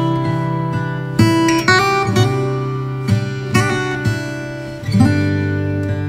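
Music played on acoustic guitar, with chords struck and let ring, changing every second or so.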